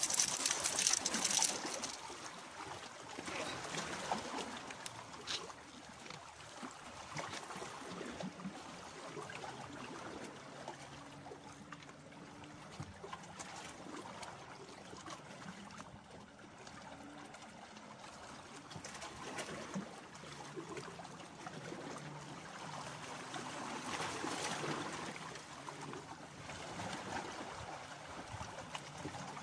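Small sea waves lapping and washing against shoreline rocks, swelling and ebbing, with a louder wash right at the start and another about twenty-four seconds in.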